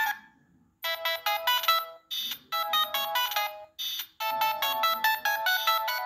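Siemens C72 mobile phone playing polyphonic MIDI ringtones through its small built-in speaker, thin and without bass. One tune stops at the start, and after a short pause another quick, beeping synth tune starts about a second in, with brief breaks between phrases.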